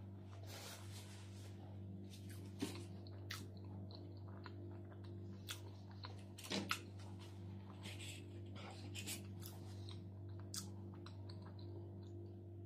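A person chewing food close to the microphone with the mouth closed: soft wet mouth clicks and small crunches come at irregular moments, with a sharper click about six and a half seconds in. A steady low hum runs underneath.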